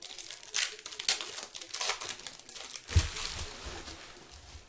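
Trading-card pack wrappers crinkling and tearing as packs are opened by hand, in a run of irregular crackles, with a low thump about three seconds in.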